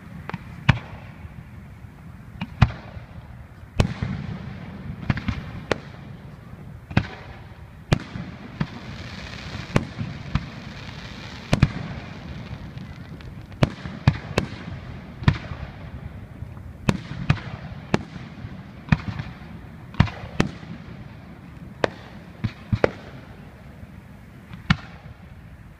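Fireworks display: shells bursting in an irregular run of sharp bangs, sometimes several in quick succession. A stretch of hiss comes about nine seconds in.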